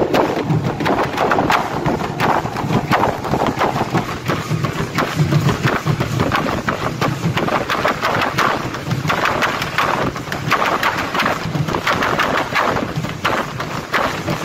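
Aztec ceremonial dance percussion: a drum beating steadily under a dense, fast clatter of rattles and stamping feet.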